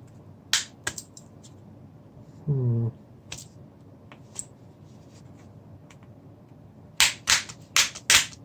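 Sharp plastic clicks and snaps as the back cover of an LG G2 smartphone is pried open and its clips let go. A few scattered clicks come first, then a quick run of about five snaps near the end. A short hum from the person comes about two and a half seconds in.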